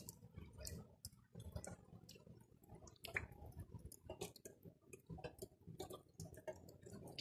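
Faint, irregular ticks and clicks of rain and wet snow drops striking the terrace, railing and roofs, several a second, over a faint low rumble.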